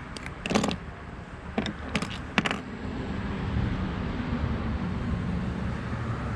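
A handful of sharp clicks and knocks in the first two and a half seconds from a small electrical plug and hand tools being handled, over a steady low background rumble.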